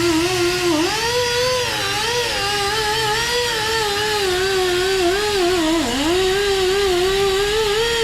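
A high-speed tire-shop power tool whining, its pitch wavering up and down as it runs. It spins up just before the sound settles and winds down quickly at the very end.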